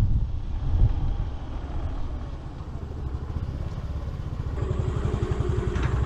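Yamaha Street Rally scooter's single-cylinder engine running at low speed, its even firing pulses coming through as the wind rush dies away in the first couple of seconds while the scooter slows.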